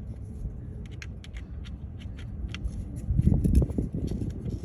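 Scattered light clicks and handling noise of hand work on truck engine parts, over a low rumble that swells about three seconds in.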